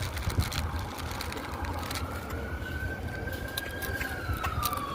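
Police siren wailing, starting about a second and a half in, rising slowly and then falling, over a steady low rumble of vehicles.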